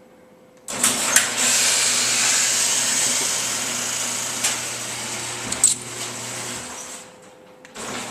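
Electric garage door opener starting up and running, a steady motor hum under the noise of the moving door, with a few clicks along the way. It dies down and stops shortly before the end, then starts again.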